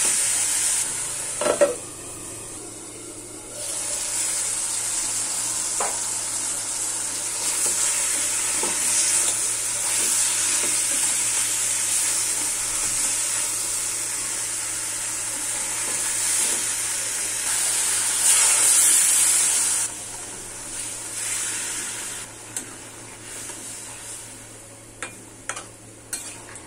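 Raw banana pieces in masala sizzling as they fry in a metal kadai, with a metal spatula scraping and stirring them. About twenty seconds in the sizzle drops off, and the pieces are left in a thin gravy with a few clinks of the spatula against the pan.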